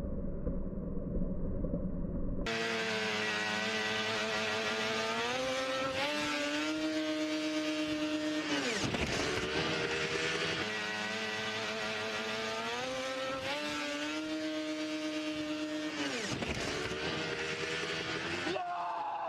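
Snowmobile engine heard from an onboard camera, revving up and holding at high revs, then dropping off sharply, twice over, and revving up again near the end. A low rumble comes before the engine cuts in.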